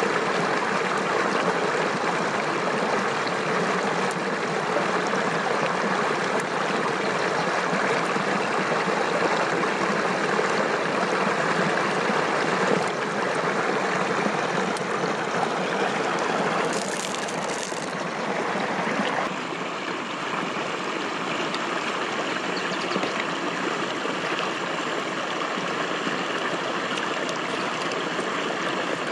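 Steady rushing of flowing water, a brief higher hiss past the middle, after which it runs a little quieter.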